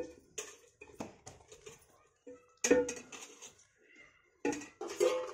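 Scattered household knocks and clinks, the loudest a little under three seconds in with a short ring after it.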